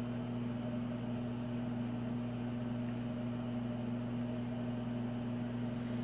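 Steady low hum with a faint hiss, unchanging throughout: room tone from a running appliance or fan motor.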